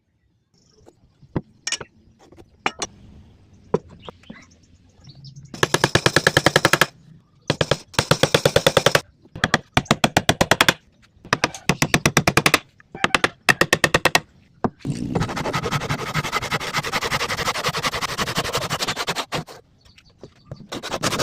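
Hand saw cutting wood: a few sharp knocks first, then several short bursts of rapid strokes, then a longer unbroken stretch of sawing near the end.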